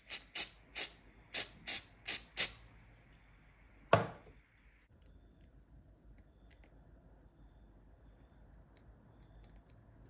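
Aerosol spray can giving seven short, sharp puffs in quick succession, followed about four seconds in by a single louder knock; after that only faint ticks.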